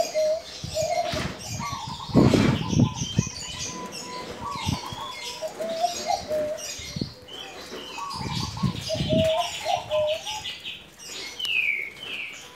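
Male gong-type zebra dove (perkutut) cooing in short, repeated wavy phrases, over-aroused. Small birds chirp high over it throughout, with two louder noisy bursts about two seconds in and again around eight to nine seconds.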